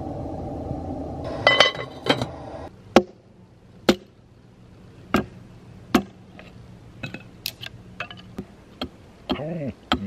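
Wooden spatula stirring a pot of bean soup, with a couple of clinks against the pan; then sharp knocks of a hatchet striking wood, four heavy strikes followed by lighter taps, as a piece of wood is split.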